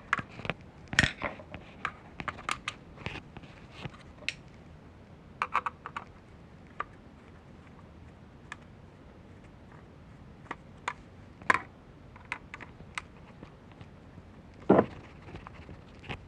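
Scattered small clicks and taps of a Phillips screwdriver and hard plastic as the small screws are backed out of a power window master switch and its plastic trim piece. A louder knock comes near the end.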